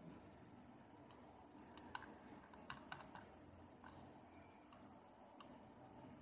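Near silence: low room hiss with about eight faint computer-mouse clicks, most of them between two and three and a half seconds in.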